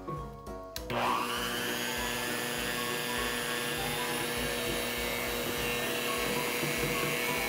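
Electric hand mixer starting up about a second in, its motor rising in pitch and then running steadily as the beaters mix flour into red cake batter.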